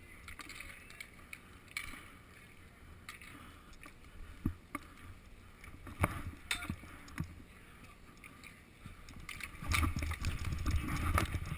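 Roller hockey play heard from a goalie's helmet-mounted GoPro: inline skate wheels rolling on a concrete rink, with a few sharp clacks of sticks and the plastic ball. A louder rumble close to the microphone comes near the end.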